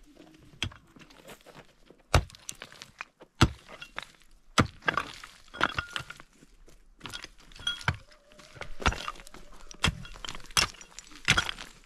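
A series of irregular sharp knocks and cracks, about a dozen, beginning about two seconds in, some with a short ringing tone.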